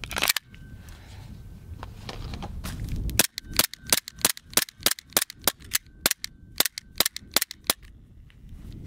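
Elite Force Glock 17 Gen 4 airsoft pistol firing: one sharp shot right at the start, then about three seconds later a quick string of around fifteen sharp shots, roughly three a second, for about four and a half seconds.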